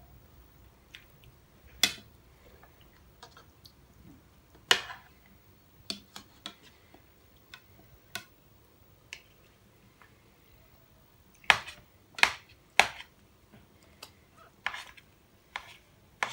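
Metal spoons clinking and scraping against ceramic bowls while eating: scattered sharp clinks, with three of the loudest close together about eleven to thirteen seconds in.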